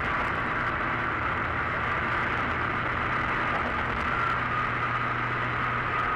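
Steady road and tyre noise of a car cruising at highway speed, heard from inside the cabin, with a faint high steady whine over it. A low hum grows stronger about four seconds in.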